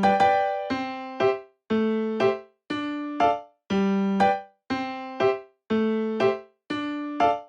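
Background music: a bouncy keyboard tune of short struck chords, with a brief gap about once a second.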